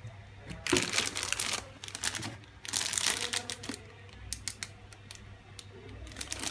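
Crinkling and rustling as the model kit's packaging and parts are handled, in two bursts of about a second each, followed by a few light clicks.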